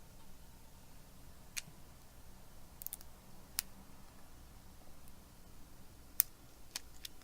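Scattered light clicks and taps, about six, the loudest a little after the middle, from small tools and phone parts being handled on the bench, over a faint low hum.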